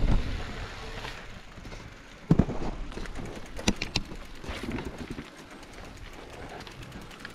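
Mountain bike rolling over a rocky trail: tyres crunching on stones, with scattered knocks and clatter from the bike. The loudest knock comes about two seconds in, and a few sharp clicks follow about a second later.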